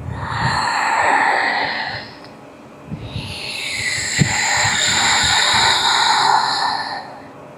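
Ujjayi (ocean) breathing: slow, hissing breaths drawn through the nose with the throat constricted. There is one breath of about two seconds, a short pause, then a longer one of about four seconds.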